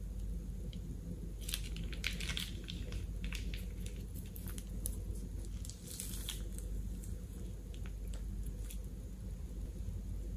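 Plastic piping bag crinkling and crackling as it is squeezed, with soft squishing as glue is piped onto slime. The crackles come in clusters about one and a half to two and a half seconds in and again around six seconds.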